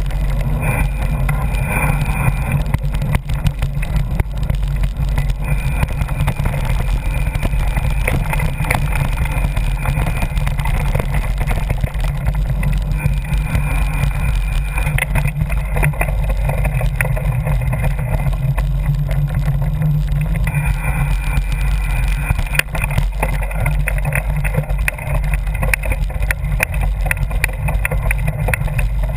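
Wind buffeting the microphone of a camera on a mountain bike descending a rough dirt trail, with the bike's steady rattle and clatter over the ground. A thin high whir comes and goes several times.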